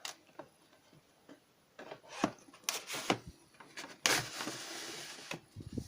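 Several knocks and clicks, then a scraping slide lasting over a second about four seconds in, as the heat fan's tube is pushed into the pipe sleeve set in the wall.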